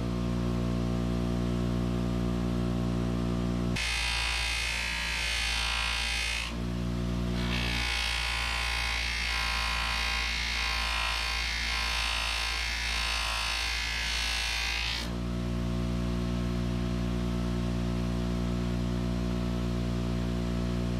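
Bench grinder running a buffing wheel, its motor giving a steady electric hum. A steel hammer head pressed into the wheel adds a loud hiss about four seconds in for a couple of seconds, then again for about seven seconds from around eight seconds in.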